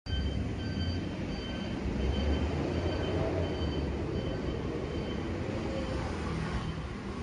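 Street ambience of motor traffic: a steady low rumble with a hiss over it. A faint high beep repeats roughly twice a second through the first few seconds.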